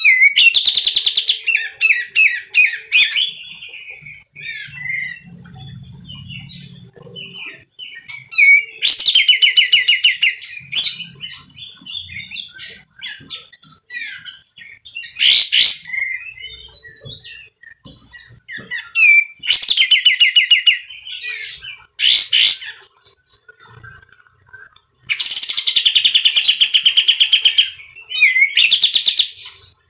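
Male kapas tembak (olive-winged bulbul) singing loud, harsh phrases of rapid chattering notes. There are about six bursts, each one to four seconds long, with softer single notes between them.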